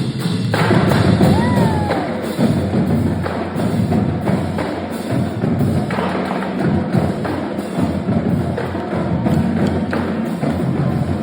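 Marching drumline playing a percussion cadence: dense, continuous drum strokes with sharp stick clicks and deep bass drum hits.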